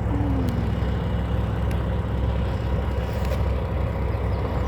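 Steady low rumble of a motor vehicle engine.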